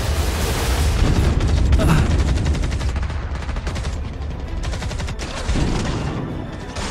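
Battle gunfire: rapid, dense volleys of rifle and machine-gun shots over a low rumble, loudest in the first couple of seconds and growing fainter towards the end.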